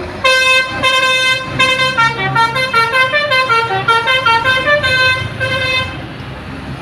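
Basuri V3 musical telolet bus horn playing a quick melody of short, stepping notes for about five and a half seconds. The notes start shortly after the beginning and stop about a second before the end, over a steady low engine hum.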